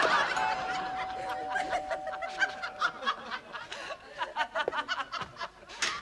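Sitcom studio audience laughing after a punchline, the laughter loudest at the start and dying down over the next few seconds.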